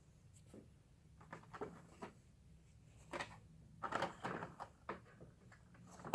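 Handling of plastic blister packaging and a small die-cast toy car: scattered light clicks and crinkles, busiest about three to four and a half seconds in.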